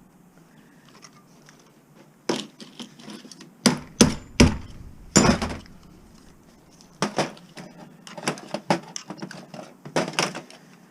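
Scrap metal pieces clanking and knocking as they are handled and sorted: about ten sharp, irregular hits, with the loudest near the middle.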